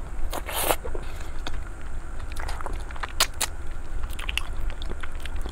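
Eating sauced chicken feet close to a clip-on microphone: a bite about half a second in, then wet chewing with scattered short mouth clicks.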